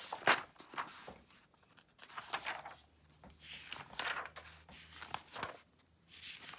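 Pages of a thick paperback study guide being flipped by hand: a run of quick papery swishes and flutters, one every second or so, with a sharp slap of paper just after the start.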